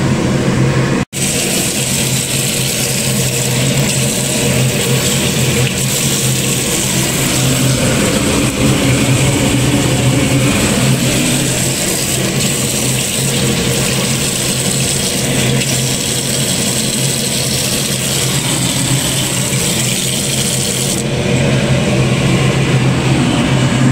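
Kitchen tap running hard into a sink holding water and live crabs, a steady splashing hiss as the crabs are rinsed, over a steady low hum. The water noise breaks off briefly about a second in and its hiss fades near the end.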